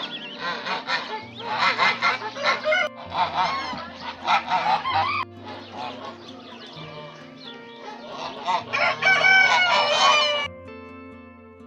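Several geese honking in loud bouts, three clusters of overlapping calls, over soft background music that carries on alone near the end.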